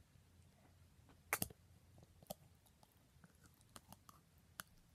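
Faint handling of plastic snack packaging: a few scattered light clicks and taps, the loudest a quick double click a little over a second in.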